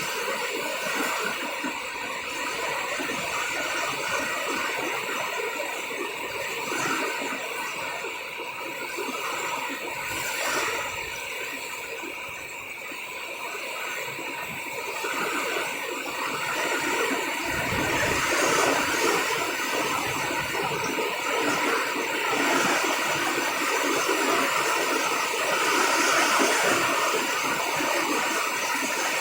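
Heavy rain pouring in a windstorm: a dense, steady hiss that swells louder in the second half.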